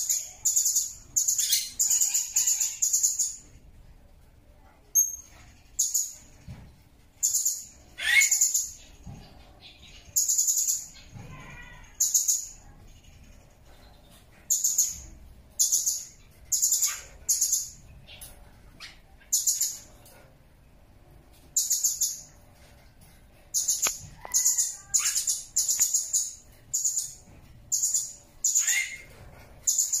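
Blue-crowned hanging parrot (serindit) calling: short, high-pitched chirps, one at a time or in quick runs of several, with pauses of about a second or two between runs.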